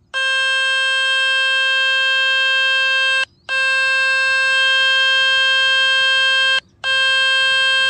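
A phone speaker playing the steady, buzzy water-ejection tone from the 'Fix My Speaker' website, meant to vibrate water out of the speaker; the tone cuts out briefly twice, a little after three seconds and again after six and a half seconds.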